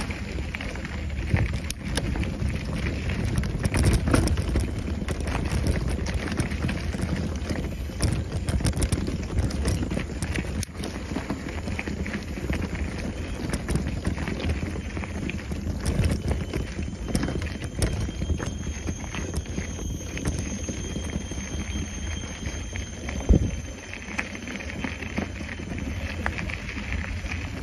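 Mountain bike rolling over a dirt trail: steady wind and tyre rumble with frequent rattling clicks and knocks, and one sharp knock late on.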